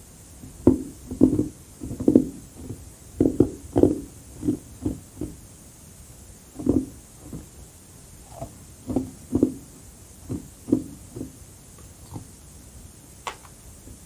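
Close-up chewing of carbonated crushed ice: a run of irregular, crisp crunches, a short pause about halfway, then more crunching bites. Near the end comes a single sharp click.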